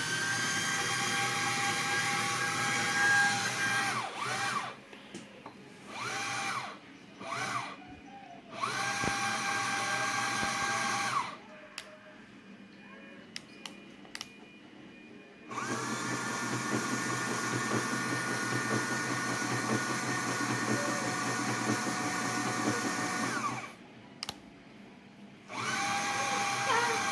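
Small electric motor running in start-stop runs, its steady whine rising as it spins up and falling as it winds down each time: a long run at the start, several short bursts, then another long run about sixteen seconds in, with a few light clicks in the pauses.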